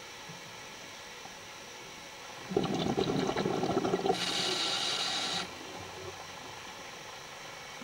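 Scuba diver breathing through a regulator underwater: a burst of exhaled bubbles starts about two and a half seconds in and runs for under two seconds, then a higher regulator hiss lasts about a second and cuts off sharply.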